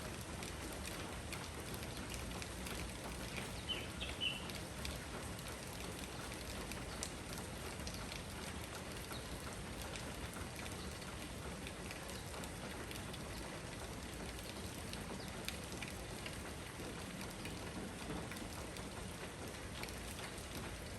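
Steady summer rain shower falling, with scattered drips ticking on surfaces. A couple of brief, sharper high sounds stand out about four seconds in.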